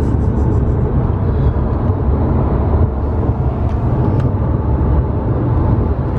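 Steady road and tyre rumble of a car travelling at highway speed, heard from inside the cabin.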